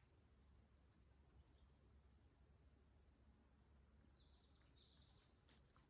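Faint, steady high-pitched chorus of insects droning without a break.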